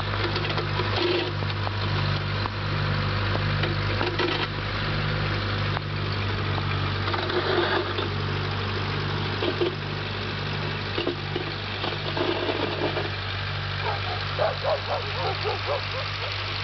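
Small snow-plowing tractor's engine running steadily, with an even pulse about twice a second.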